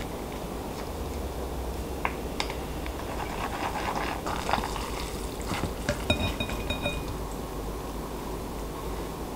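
Thick red sauce squelching onto cold buckwheat noodles and being worked in with chopsticks in a ceramic bowl. A few sharp clicks of the chopsticks against the bowl come in the middle, one followed by a brief ringing.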